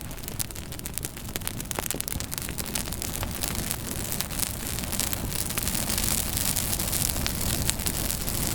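Campfire burning, with a steady rushing hiss and many sharp crackles and pops of burning wood.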